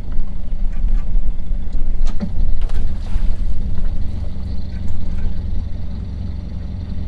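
A sailing yacht's inboard diesel engine running steadily at low speed, a deep continuous hum, with wind on the microphone and a few light knocks about two to three seconds in.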